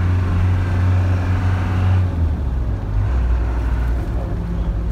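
Land Rover Defender 110 engine running under way, heard from inside the cab. A little over two seconds in, its steady low note drops to a lower pitch.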